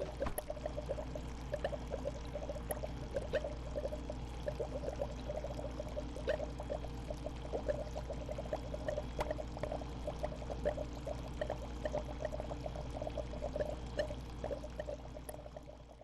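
Home aquarium water bubbling and trickling continuously, with many small splashes, over a steady low hum. It fades out at the very end.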